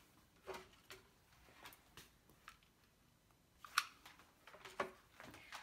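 Faint scattered taps and clicks of paper and cardstock craft pieces being handled and set down on a tabletop, with one sharper tap a little before four seconds in.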